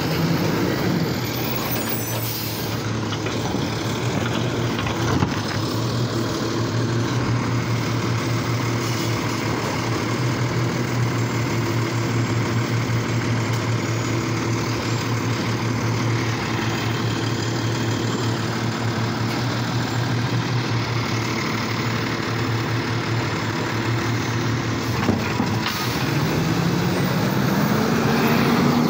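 Diesel engine of an automated garbage truck running steadily at idle, with a few short air-brake hisses; near the end the engine revs up and back down as the truck pulls ahead.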